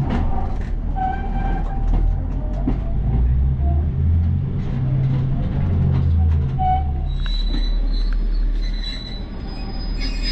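Diesel passenger train heard from inside the carriage as it slows into a station. The engine drone falls away about seven seconds in, and thin, steady squeals from the wheels and brakes come in over the last few seconds.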